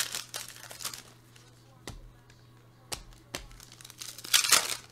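Foil wrapper of a trading-card pack crinkling as it is handled and torn open, with a couple of light clicks from cards being handled. The loudest crinkle comes near the end.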